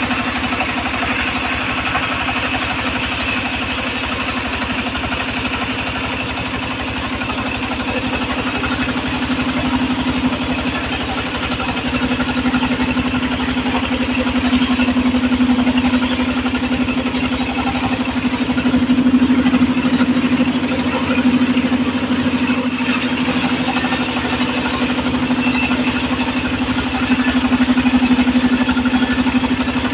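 Homemade engine-driven circular sawmill running steadily, with a constant hum that swells a little and eases back at times.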